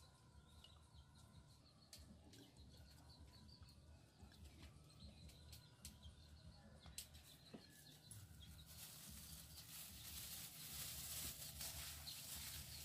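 Near-silent outdoor ambience with faint bird chirps and a few small clicks of bottles being handled; from about nine seconds in, a soft crinkling rustle of a plastic bag worn as a glove, growing louder toward the end.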